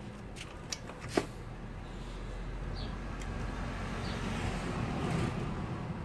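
A few sharp metallic clicks of small parts and hand tools being handled, the sharpest about a second in, then a vehicle passing by, its noise swelling to a peak near the end and easing off.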